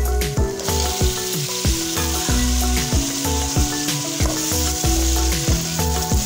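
Cubed raw potatoes sizzling in hot oil and fried onions in a metal pot, the sizzle starting about half a second in as they go into the pan, stirred with a spatula. Background music with a steady beat underneath.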